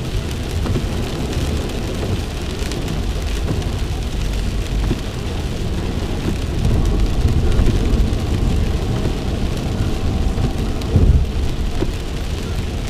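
Heavy rain hitting a moving car, heard from inside the cabin, over a steady low rumble of tyres on wet road. A brief louder low thump comes about eleven seconds in.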